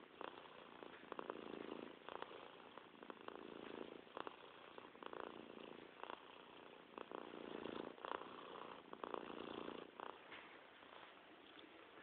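An animal purring in rough pulses of about a second with short gaps, with a few faint clicks. The purring fades near the end.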